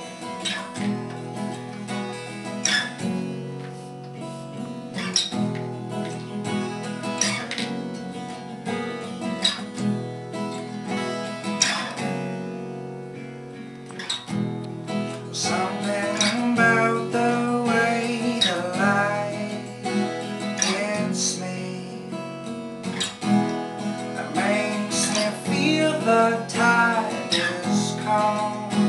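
Acoustic guitar strummed in chords, with strong accented strokes about every two seconds. A higher, wavering melody line comes in over it about halfway through and again near the end.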